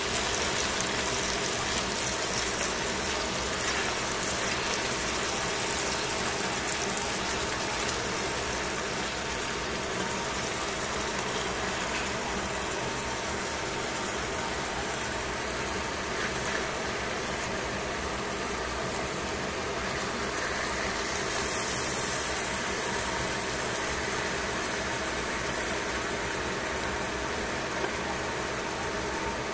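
Bean sprouts and vegetables sizzling steadily in a hot stainless steel pan, with a faint steady hum underneath.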